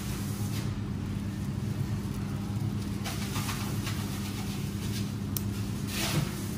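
Steady low machine hum with a constant background noise, with a couple of faint brief rustles.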